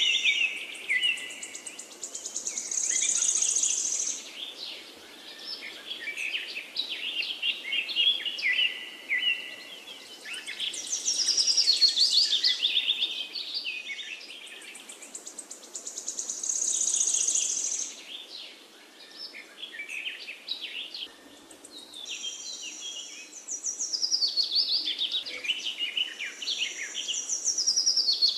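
Songbirds chirping and singing, with many quick high chirps and rapid trills that swell and fade every few seconds.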